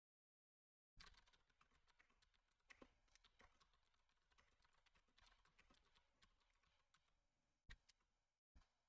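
Faint typing on a computer keyboard: a quick, irregular run of key clicks, with a couple of sharper keystrokes near the end.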